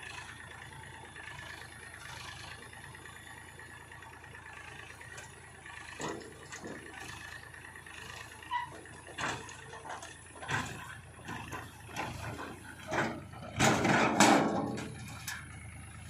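Machinery running steadily, with a string of separate knocks and clanks from about six seconds in, and a louder rush of scraping noise about three-quarters of the way through, as of mud being dropped or scraped into a trolley.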